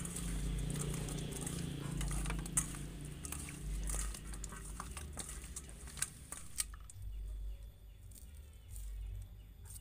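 Hands rubbing and turning wet raw fish pieces with lime in a stainless steel bowl: soft squelching with many small clicks and a few sharp ticks against the metal. About two-thirds of the way through it goes quieter, leaving faint knife scraping as shallots are peeled.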